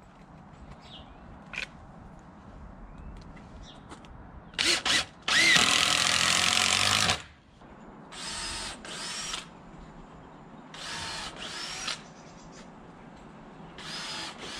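Cordless drill-driver driving screws to fix fence rails to timber posts, in separate whirring runs: two brief bursts, one long run of nearly two seconds, then several shorter ones.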